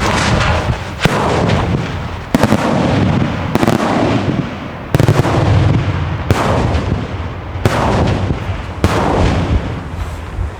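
Fireworks display: aerial shells bursting one after another, a loud bang about every second and a bit, each followed by a rolling tail that dies away before the next.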